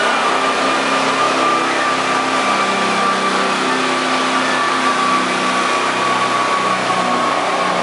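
Riding lawn mower engine running hard and steady under load while pulling a weight sled, with a high steady whine that sags slightly in pitch as the pull goes on.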